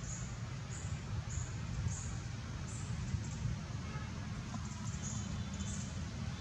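Outdoor ambience: a steady low rumble with short, high-pitched chirps repeating about every half-second, pausing midway and returning near the end.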